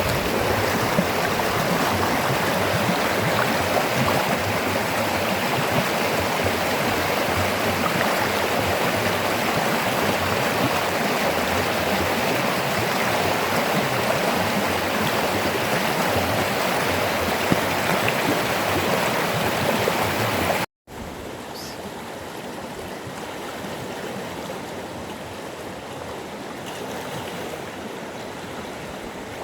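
River water flowing steadily, a loud even rush; about two-thirds of the way through it cuts off abruptly and gives way to a quieter, duller flow of water.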